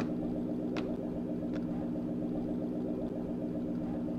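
Car engine idling steadily, with a couple of faint sharp clicks in the first two seconds.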